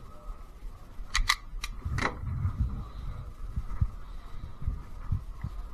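Four sharp clicks in quick succession about a second in, the last the heaviest, followed by irregular low thuds and rustling of movement on the microphone.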